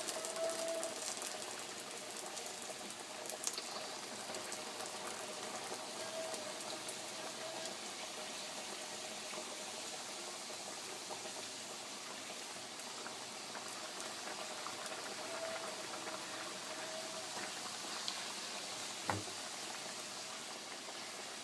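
Pan of frying oil heating on a low flame, a faint, steady hiss with slight bubbling, before anything is put in. A single short click about 19 seconds in.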